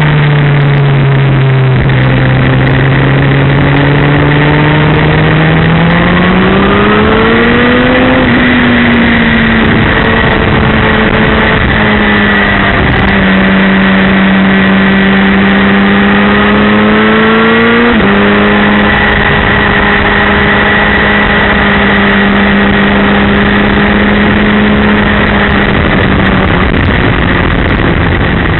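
Suzuki GSX-R 1000's inline-four engine at speed on track, heard from a camera mounted on the bike over heavy wind rush. The engine note rises and falls with the throttle and drops sharply twice with gear changes, near the start and about two-thirds through.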